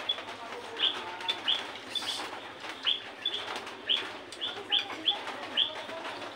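Small birds chirping: short, high, downward-sweeping chirps repeated irregularly, about two or three a second.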